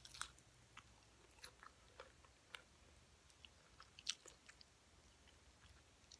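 A person biting into and chewing crunchy fried whiting fish close to the microphone: scattered small crunches and mouth clicks, the sharpest just after the start and about four seconds in.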